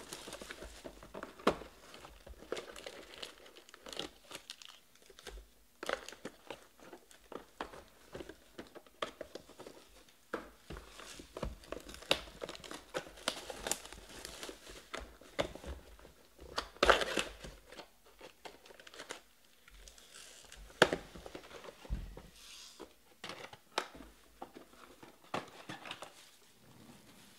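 Plastic shrink wrap crinkling and tearing as it is stripped off a hobby box of trading cards, with clicks and taps of the cardboard box being handled. The crackles come in irregular bursts, the two loudest past the middle.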